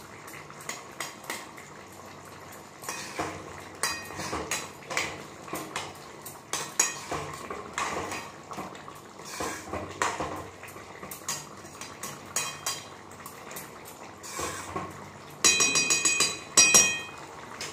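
Long metal spoon stirring and scraping thick curry in a metal kadai, with irregular clinks against the pan. Near the end come a few louder, ringing clanks of metal on metal.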